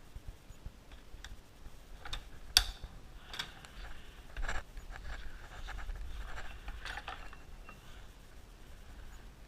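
Scattered clicks and knocks of objects being handled, the loudest about two and a half seconds in, with a soft rustling in between. No engine is running.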